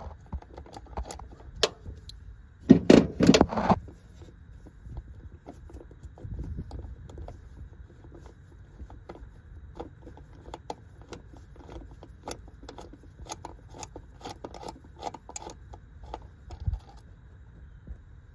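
Hand tools clinking and scraping against metal parts, a string of short sharp clicks, with a loud burst of rapid scraping strokes about three seconds in.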